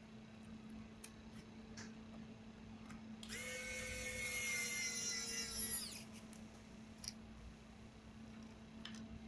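Small electric screwdriver running for about two and a half seconds with a whine that sags slightly in pitch, driving a screw. A few light clicks come before and after it.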